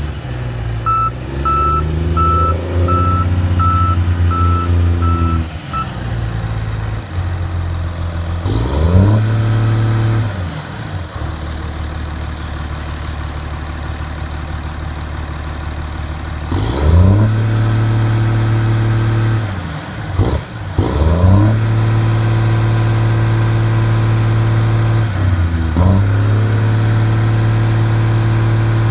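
Tigercat 630C grapple skidder's diesel engine running under load as the machine drives, revving up and settling back four times. A backup alarm beeps about twice a second for the first few seconds.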